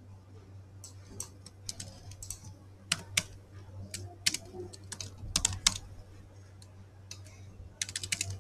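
Typing on a computer keyboard: irregular keystrokes, with a quick run of keys near the end.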